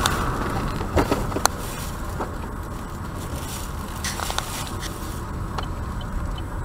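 Steady road and engine noise inside a moving car, with a couple of sharp clicks about a second in and faint regular ticking near the end.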